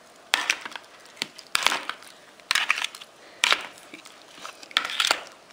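A spoon stirring chicken wings in oily marinade in a plastic bowl: a run of short stirring strokes, each a second or so apart.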